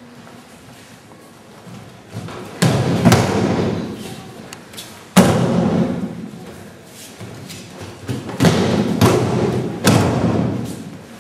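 Judo throws landing on tatami mats: a series of heavy thuds and breakfall slaps as bodies hit the mat, about six in all, spread over several seconds, each trailing off over a second or so.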